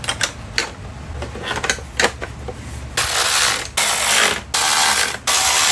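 Tool work on a motorcycle: scattered light clicks and knocks, then from about three seconds in four noisy mechanical strokes, each under a second long, with short gaps between.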